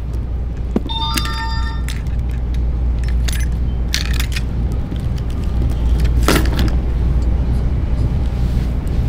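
Keys jangling and clinking in the hand, with a brief metallic ring about a second in and sharper jingles a few seconds later, over a steady low rumble.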